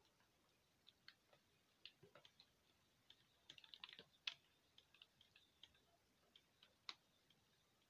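Near silence with faint, irregular light clicks and ticks, a quick cluster of them about half-way through and a single sharper click near the end.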